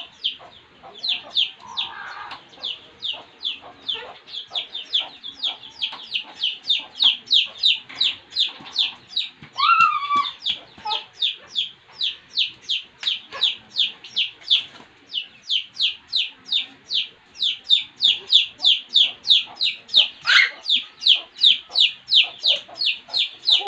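A chick peeping over and over in a steady string of short, high, downward-falling peeps, about three a second.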